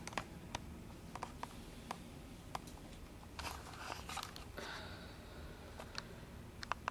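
Faint scattered clicks and a few brief soft rustles, the handling noise of a handheld camera being moved, over quiet room tone.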